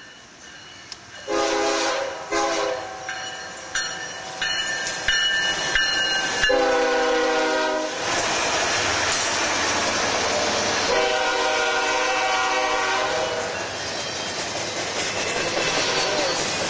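BNSF diesel freight train approaching and passing close, its lead GE locomotive sounding its air horn: two short blasts, then a long one ending as the locomotives arrive, and another long blast a few seconds later. From about the middle on the locomotives' engines run and the double-stack container cars roll by with wheel clatter on the rails.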